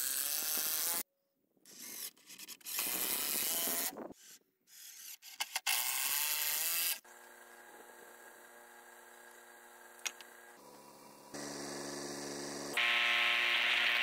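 Ryobi cordless impact driver running in several bursts, spinning up as it drives long structural screws into rough-cut timber. After about seven seconds it stops and a quieter steady hum with held tones takes over.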